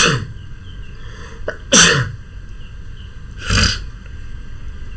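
A man sneezing three times in a row, about two seconds apart, each a sharp loud burst with a falling vocal tail.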